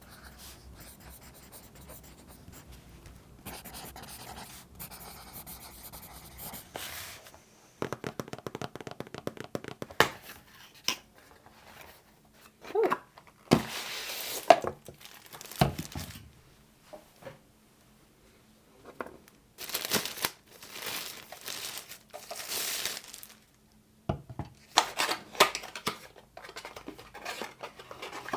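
Packaging being torn open and plastic crinkling as a new humidifier is unboxed by hand, in irregular bursts with small clicks and knocks of handling.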